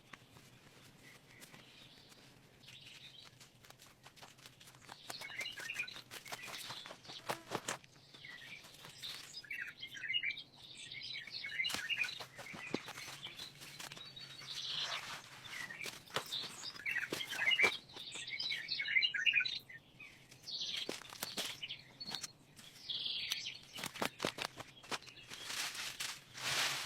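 Birds chirping in short bursts every few seconds, with scattered sharp clicks and snaps in between.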